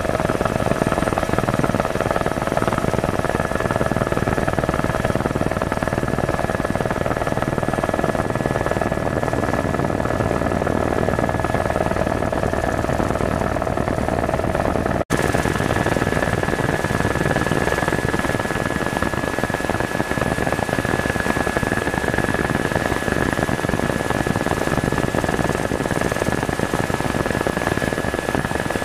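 Tour helicopter heard from inside the cabin: a steady rotor and engine drone with a steady whine over it. It cuts out for an instant about halfway through, and after that the whine sits higher.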